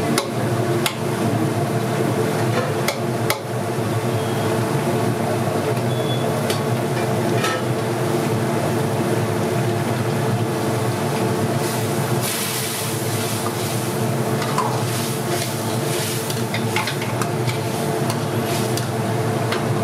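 Biryani cooking in a large pot: a metal ladle stirs and scrapes the food with occasional sharp clinks, and the food sizzles over a steady low hum. A louder burst of hiss comes about twelve seconds in.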